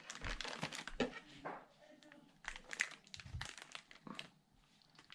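Small clear plastic parts bag crinkling as it is handled, in two spells of crackles.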